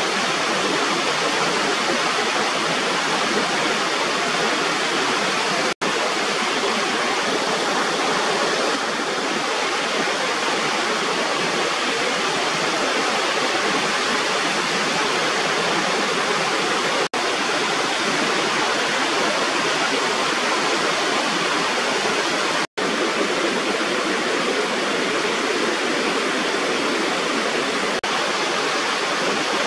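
Steady rushing of water spilling over a raised rubber weir as a small waterfall, with three momentary gaps in the sound.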